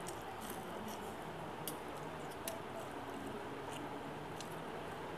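A person eating close to the microphone: chewing with scattered short, sharp mouth clicks and smacks over a steady hiss.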